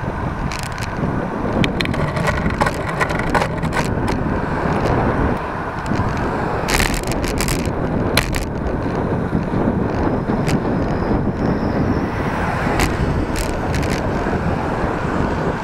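Wind rushing over the microphone of a camera on a moving bicycle, with steady tyre and road rumble and frequent sharp clicks and rattles from the bike over the road surface, a cluster of them about seven to eight seconds in.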